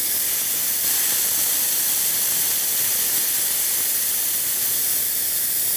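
High-pressure air venting with a loud, steady hiss through the loosened bleed screw of a DAVV SCU60S 300-bar compressor's fill line, relieving the pressure left in the line after filling a tank.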